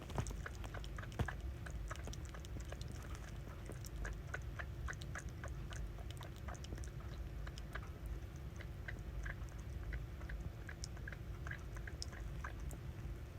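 Pug puppy making wet mouth sounds, chewing and smacking, heard as a run of small irregular clicks several times a second, with two sharper clicks near the start.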